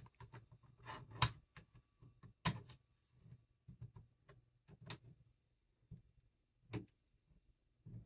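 Bottom cover of a Lenovo ThinkPad T14 Gen 4 being pried off with a plastic pry tool: scattered sharp clicks and snaps as the cover unclips. The louder ones come about a second in, at about two and a half, five and seven seconds.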